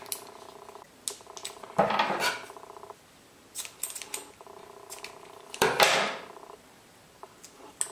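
A rubber balloon being handled and trimmed with scissors: two louder rustling, snipping noises about two seconds in and again near six seconds. Under them a steady hum with a few pitches that breaks off now and then.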